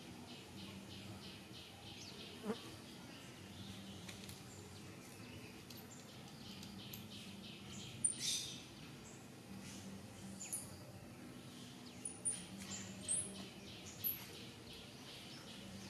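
Faint outdoor ambience with an insect buzzing on and off in a low hum. In the second half come several short, sharp high-pitched sounds, the first and loudest about halfway through.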